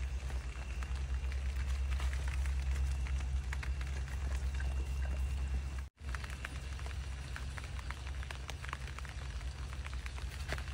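Rain falling, with many short drop ticks scattered through a steady hiss, over a steady low hum. The sound cuts out for an instant about six seconds in.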